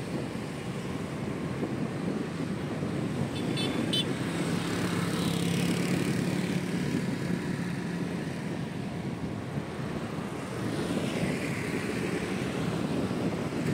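City street traffic heard from a moving motorbike: steady engine and road noise, with a low engine hum standing out for several seconds in the middle.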